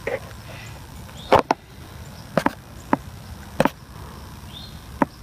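About six short, sharp clicks and knocks at irregular intervals over a low background hiss, the loudest about a second and a half in.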